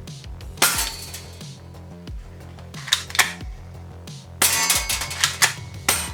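Toy gun shots: a sharp bang about a second in, two more around the middle, then a quick string of shots, over steady background music.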